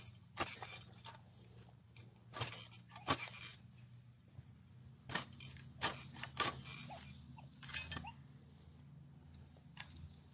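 Short, irregular rustling and crunching in lawn grass and turf, from a metal detector coil being swept through the grass and a hand digger cutting a plug.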